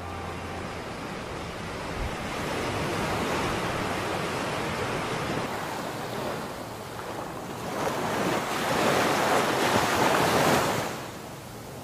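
Sea surf breaking and washing up a sandy beach, with wind. The sound swells and ebbs with the waves, the loudest surge about eight to ten seconds in, then falls away.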